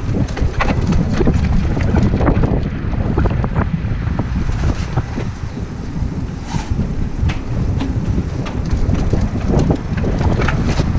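Mountain bike rolling fast down a rough paved lane, wind buffeting the camera microphone with a steady low rumble, and the bike rattling and knocking sharply over bumps in the pavement.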